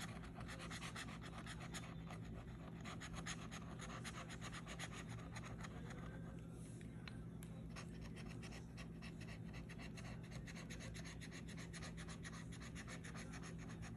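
A metal bottle opener scraping the coating off a scratch-off lottery ticket in rapid, repeated short strokes, easing briefly in the middle.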